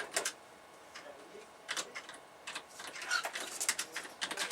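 Cockatiel pushing and tossing sheets of printed paper on a desk: irregular paper rustles and light taps, with a brief pitched sound about three seconds in.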